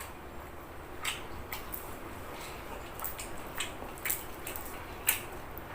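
Irregular light clicks and taps, about a dozen, from handling food and kitchen utensils while preparing squid.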